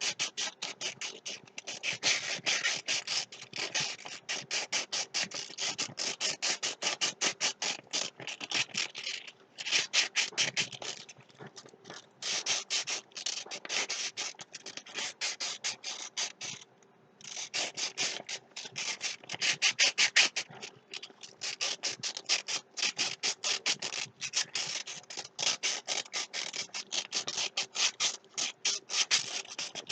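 Two sheets of sandpaper rubbed hard against each other in rapid back-and-forth strokes, a loud rough rasping with a couple of brief pauses.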